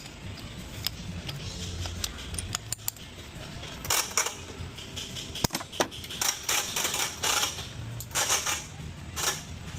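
Metal tools being handled, with scattered clicks and then a run of rattling, clattering knocks about halfway in.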